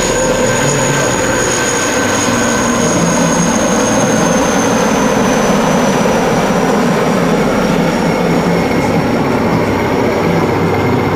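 Three large military transport helicopters flying past in formation, with a steady heavy rotor and turbine noise and a high turbine whine that falls slowly in pitch as they go by.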